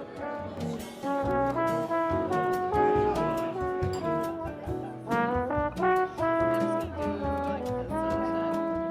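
Instrumental music with a jazzy, brass-like melody of held notes stepping up and down over a bass line.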